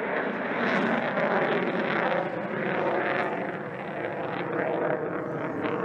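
F-22 Raptor's twin Pratt & Whitney F119 turbofan engines heard in flight: a steady jet engine noise that swells and eases slightly as the fighter manoeuvres.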